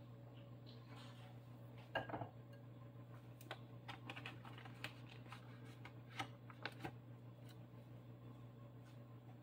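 A silicone spatula is set down on a ceramic plate with a sharp clack about two seconds in. Then comes a scatter of small light clicks as the cheese slices are handled, over a steady low hum.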